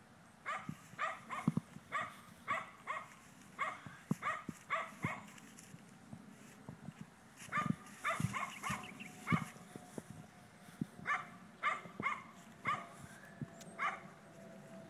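A dog barking over and over, short barks coming in quick runs of two or three, with a pause of about two seconds around the middle.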